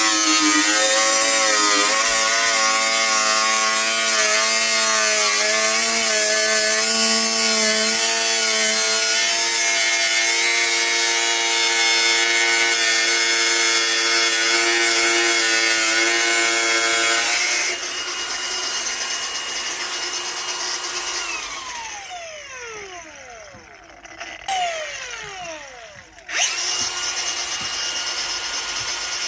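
Electric grinder cutting into a panel, its motor whine wavering in pitch under load. About 17 seconds in it comes off the cut and runs free, then is switched off and the whine falls as it spins down. It starts up again near the end.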